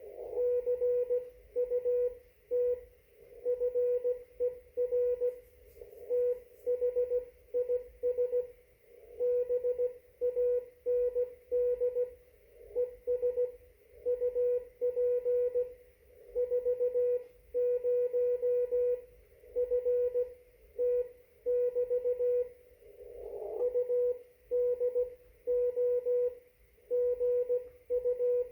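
Morse code (CW) from an amateur radio transceiver on the 30 meter band: a steady tone of about 500 Hz keyed on and off in dots and dashes at a steady sending pace, over faint receiver hiss.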